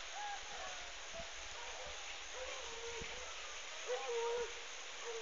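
Distant dogs baying in a few drawn-out calls over a faint outdoor hiss, the loudest about four seconds in.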